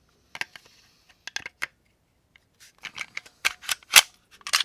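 Sharp mechanical clicks and clacks of a Glock 29 SF 10mm pistol being handled, a few scattered at first, then coming quicker from about three seconds in, the loudest near the end.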